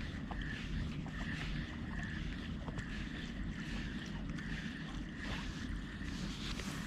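Wind buffeting the microphone as a steady low rumble, with a faint high whir that comes and goes.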